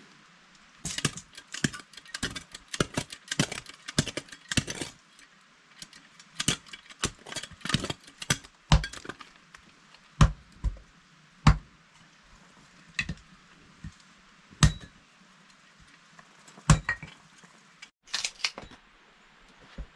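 Irregular sharp clinks and knocks of hard objects being handled and struck: a quick flurry in the first few seconds, then single strikes every second or two, and a short quick cluster near the end.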